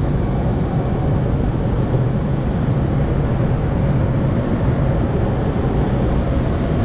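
Steady rush of air around an SZD-30 Pirat glider in flight, heard inside its cockpit, a constant deep noise with a faint hum underneath.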